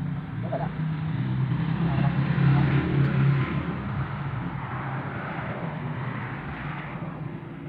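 A motor vehicle's engine passing by: a low hum that grows louder to a peak about three seconds in, then slowly fades.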